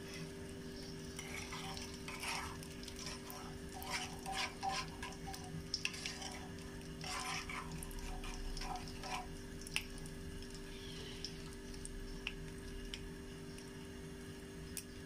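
A utensil stirring hot olive oil and ground seeds in a metal frying pan, clinking and scraping against the pan in irregular bursts for the first nine seconds or so, then only a few scattered clicks. A faint sizzle and a steady low hum run underneath.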